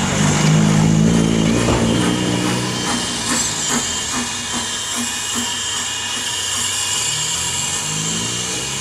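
BR Standard Class 4MT 4-6-0 steam locomotive running slowly, with a steady hiss of steam. A low drone fills the first few seconds, and a run of soft, evenly spaced knocks comes from about three seconds in.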